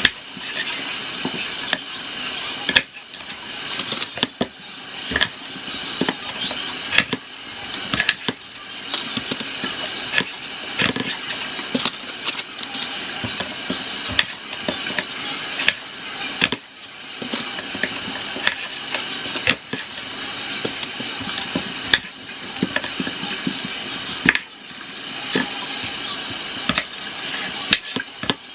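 Kitchen knife cutting potatoes on a cutting board: irregular sharp knocks, some close together and some seconds apart, over a steady hiss.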